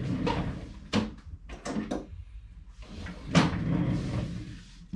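Knocks and a scraping slide of a drawer being opened and rummaged through while a pair of pliers is fetched, with a louder knock about three and a half seconds in.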